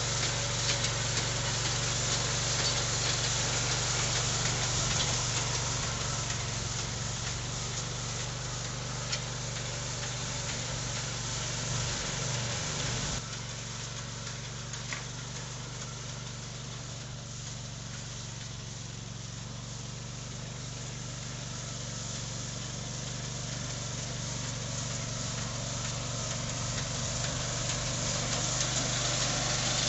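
Engine of a walk-behind two-wheel motor mower running steadily while it pushes hay with a front-mounted hay pusher; the sound is a little quieter from about thirteen seconds in.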